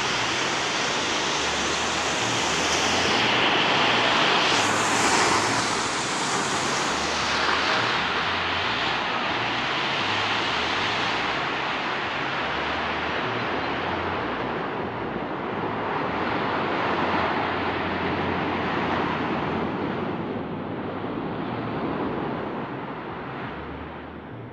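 Small surf breaking and washing up a sandy beach, the wash swelling and easing several times, with wind buffeting the microphone.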